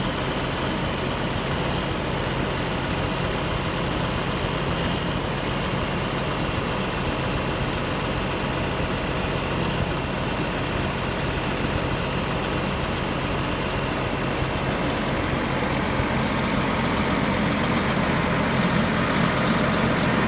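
John Deere 9320 tractor's diesel engine idling steadily, with a faint high whine above it; the sound grows somewhat louder over the last few seconds.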